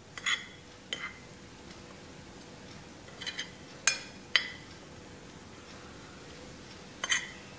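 Steel spoon clinking against a ceramic plate while stirring ground spice powder together: about six sharp, irregularly spaced clinks with a brief ring.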